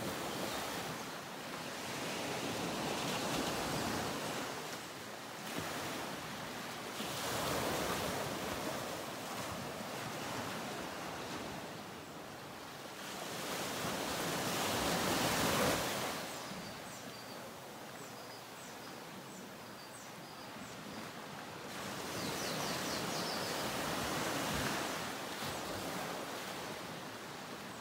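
Ocean surf: waves breaking and washing ashore, a rushing sound that swells and fades every several seconds, loudest a little past the middle.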